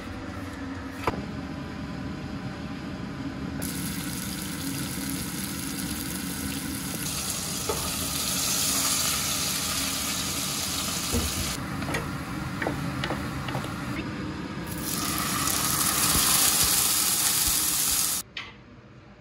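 Kitchen cooking sounds: a single knife chop on a wooden cutting board about a second in, then a long steady hiss that eases off past the middle, comes back louder and cuts off suddenly near the end.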